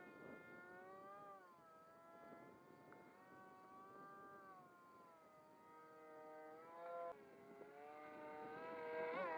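Motor of an RC model F-22 plane flying, a faint whine that drifts slowly up and down in pitch, with a brief rise and sudden drop about seven seconds in, and growing louder near the end.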